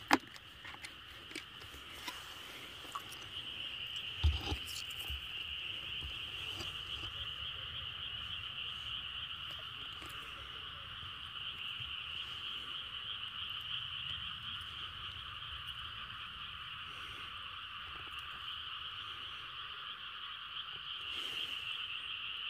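Steady outdoor night chorus of frogs and insects, a continuous high trill that does not break. A couple of sharp knocks come at the start and about four seconds in.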